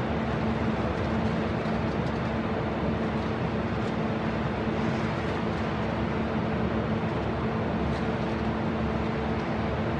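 Steady machine hum, a constant low tone over an even rushing noise, with no change in speed or pitch.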